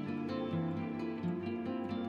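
Background instrumental music with plucked-string notes over sustained chords.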